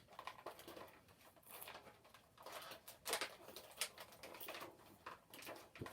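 Light, irregular clicks and crackles of plastic action-figure packaging and small plastic toy parts being handled, with a few sharper clicks about three and four seconds in.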